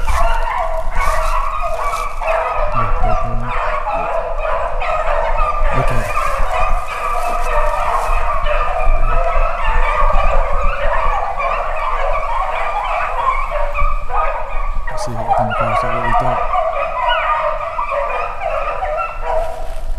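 A pack of beagles baying as they run a rabbit's trail, many voices overlapping without a break.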